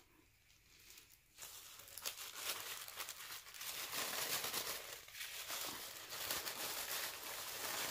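Crinkle-cut paper shred and tissue paper rustling and crinkling as hands dig through a gift box and lift out sheets of paper, starting about a second and a half in.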